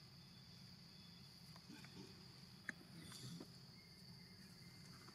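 Faint, steady, high-pitched insect drone, with one short click about two and a half seconds in.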